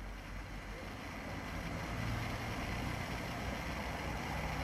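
Beach ambience: a steady low rumble and hiss of wind and sea, with no distinct events.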